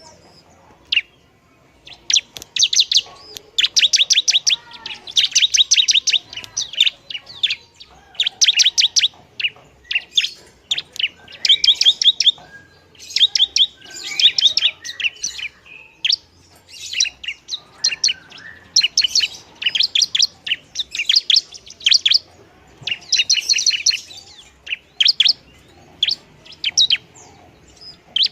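Bar-winged prinia (ciblek) singing: rapid trains of sharp, high chirping notes in bursts of a second or two, with short pauses between them.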